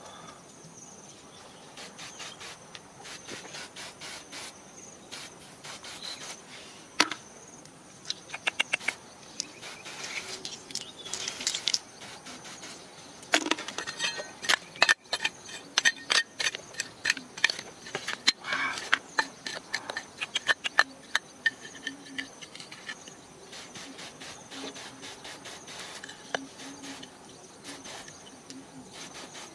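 Fingers scraping and raking through wet gravel and mud, small stones clicking and clattering in irregular clusters. A steady high insect drone runs underneath.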